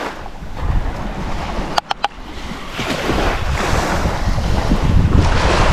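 Wind buffeting the microphone over the wash of waves on the shore, swelling from about halfway through. A quick cluster of three sharp clicks comes about two seconds in.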